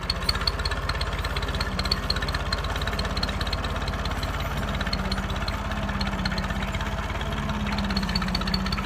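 An engine running steadily at an even speed, with a rapid, regular low beat.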